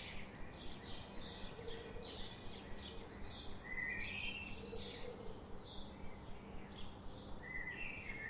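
Small birds chirping: short, high chirps repeating about twice a second, with a brief rising twitter twice, once near the middle and once near the end, over a steady background hiss.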